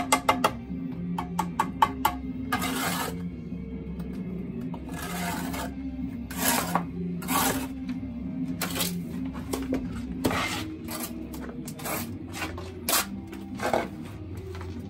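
Steel mason's trowel scraping and slapping mortar onto concrete blocks, with quick clicks of the trowel striking the block near the start and short scrapes every second or so after. Steady background music plays underneath.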